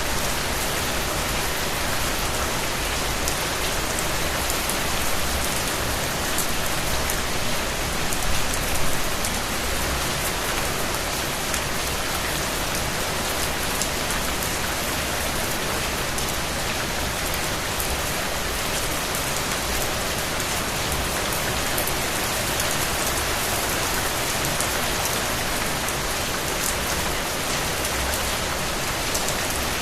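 Steady rain with a constant hiss and dense patter of raindrops on surfaces.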